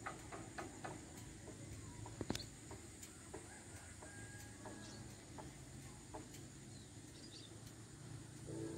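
Faint outdoor ambience with distant bird calls and scattered light clicks, one sharper click about two seconds in. Background music comes in just before the end.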